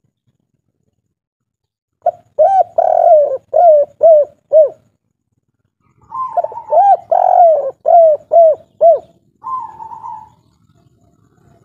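Spotted dove (tekukur) of the three-note 'kuk 3' song type cooing loudly: two phrases of short, rising-and-falling coos, starting about two seconds in and again about six seconds in, followed by a shorter higher coo near the end.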